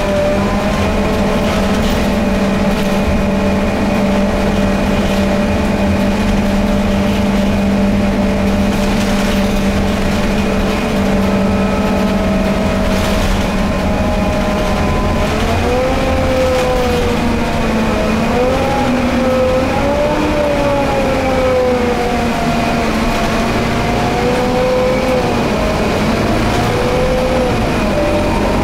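Scania K320UB bus heard from inside the cabin while it drives: a steady drone from its five-cylinder diesel and ZF Ecolife automatic driveline, over road rumble. The tones hold steady at first, then waver up and down in pitch from about halfway through.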